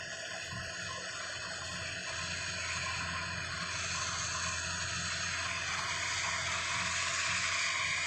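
Kubota DC105X rice combine harvester working, its diesel engine and threshing machinery making a steady mechanical drone that grows gradually louder.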